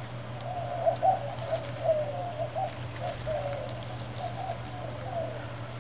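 Low, wavering cooing like a dove's runs through, with a few light crackles about one and two seconds in, over a steady low hum.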